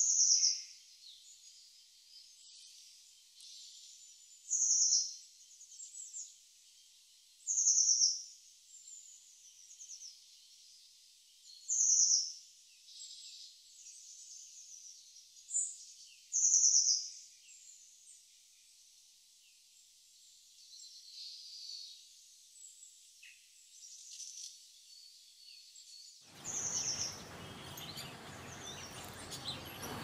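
Cockatiels in a cage calling: loud, shrill, short whistled calls about every three to four seconds, with softer chirps between. Near the end a steady hiss of background noise comes in with quieter chirps.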